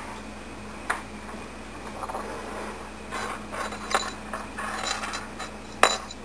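Kittens moving about a wire cage and its cat bed: scratchy rustling and scraping, with a few sharp clicks, the loudest near the end, over a steady low hum.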